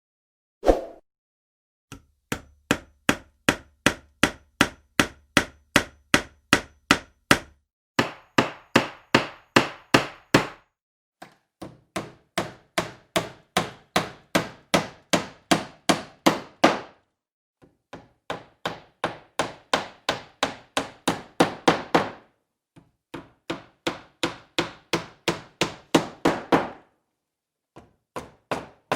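Hammer striking repeatedly at about three blows a second, in runs of several seconds broken by short pauses.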